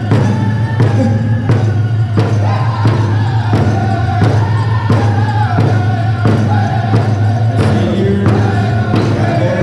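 Powwow drum group playing a chicken dance song: several men's voices singing together over a steady, evenly spaced beat on a large powwow drum.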